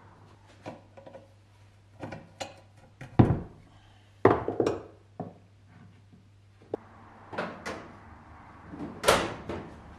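Metal engine parts knocking and clunking against a wooden workbench as the fuel rail and injectors are taken off a BMW M20 intake manifold. The knocks are irregular, loudest about three seconds in, a second later, and again near the end.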